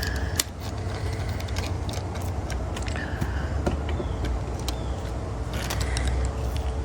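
Scattered light clicks and taps from a diecast model car being handled, over a steady low rumble.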